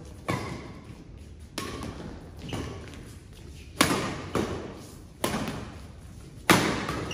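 Badminton rackets striking a shuttlecock back and forth in a doubles rally: about seven sharp hits, roughly one a second, each echoing in a large hall.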